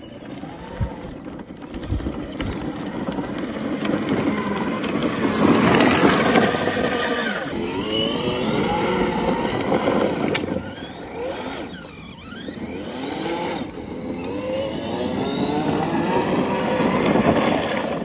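Car engine revving, its pitch rising and falling again and again.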